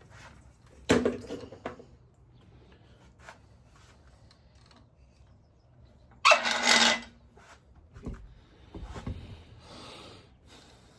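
A turning tool cutting a spinning goncalo alves (tigerwood) shift-knob blank on a wood lathe: short scraping cuts about a second in and, loudest, around six seconds in, with lighter scrapes near the end.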